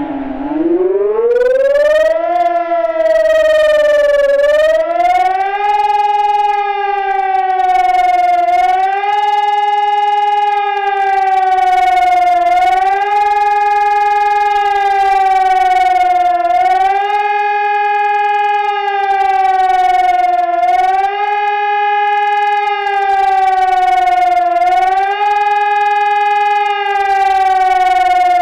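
High-performance civil-defence warning siren sounding the German 'Gefahr' public warning signal. Its two-note tone rises at the start, then swells up and down in pitch about every four seconds.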